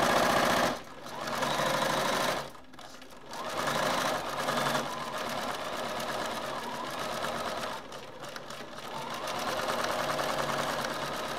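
Computerized sewing machine stitching at speed, a fast, even run of needle strokes as it top-stitches fabric alongside a zipper. It eases off briefly about a second in and again around three seconds in, then runs on steadily.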